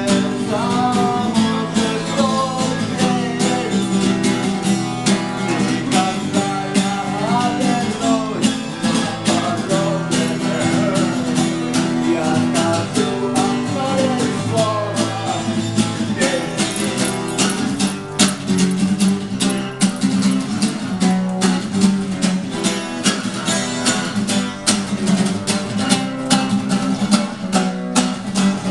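Live rock song with a strummed guitar and a singing voice. The voice is heard over the first half, then steady guitar strumming carries on through the rest.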